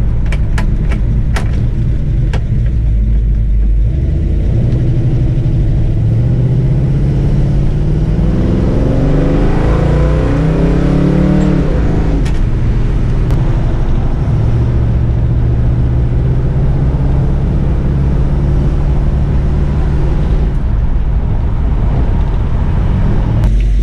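A rebuilt, cammed 351 Cleveland V8 with extractors and a 750 CFM carburettor in an XC Ford Falcon, heard from inside the cabin while driving. The engine pitch climbs as the car accelerates from about four seconds in, drops back about twelve seconds in, then settles into a steady cruise. A few sharp clicks come near the start.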